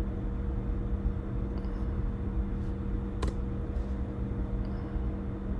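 Steady low machine hum with a few steady tones in it, and one sharp click about three seconds in.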